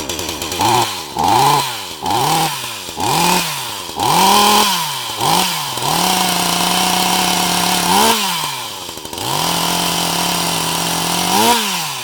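Chainsaw engine being revved: about six quick blips up from idle and back, then held at full speed twice for a couple of seconds each before dropping back.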